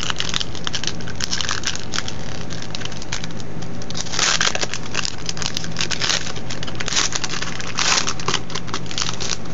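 Magic: The Gathering booster pack's foil wrapper crinkling and tearing as hands work it open, in repeated bursts, the loudest about four seconds and eight seconds in.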